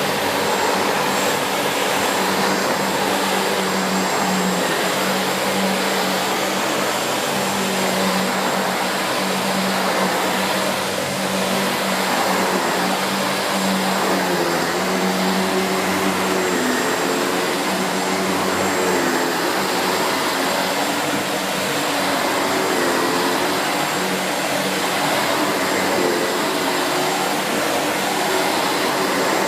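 SEBO Felix bagged upright vacuum cleaner running steadily while vacuuming, its motor note wavering slightly in pitch through the second half.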